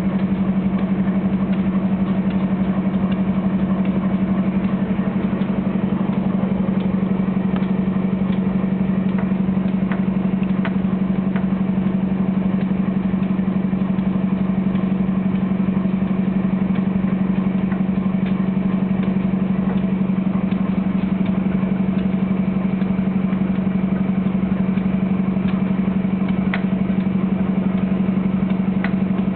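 GE Genesis P42DC diesel locomotive's engine running steadily at a constant speed, a loud unchanging hum with a few faint scattered ticks.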